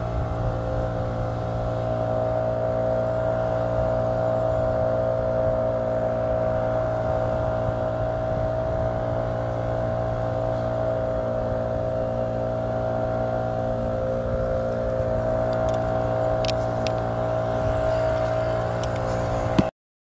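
A steady mechanical drone held at one pitch throughout, with a few faint clicks near the end, cutting off suddenly just before the end.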